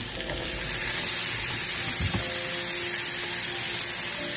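Diced onions sizzling steadily in hot oil in a frying pan, just after being tipped in.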